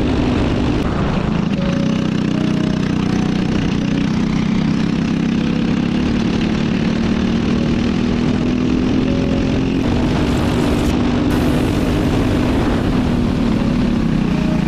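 Cadet go-kart's small four-stroke engine running steadily under throttle, its pitch rising and dipping slightly.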